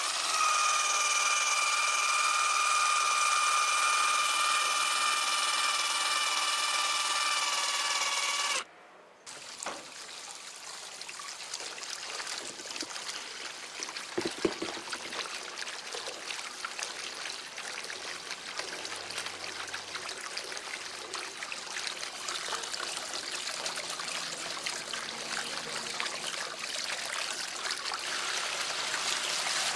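A steady high-pitched whine with several overtones for about the first nine seconds, which cuts off suddenly. Then water runs and trickles across a Persian rug as its wash floor is flooded, and the sound grows slowly louder.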